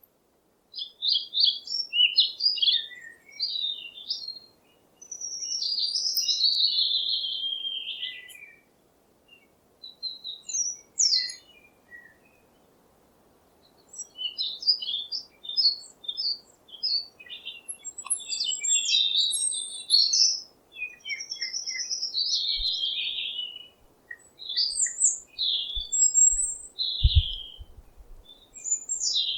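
Songbirds chirping and calling in bursts of quick high notes and short trills, with brief pauses between the bursts. A few low thumps come near the end.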